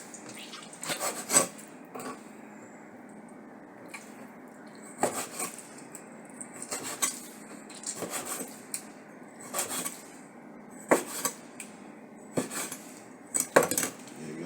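Knife cutting and knocking on a cutting board during food prep, in irregular strokes with short pauses between clusters.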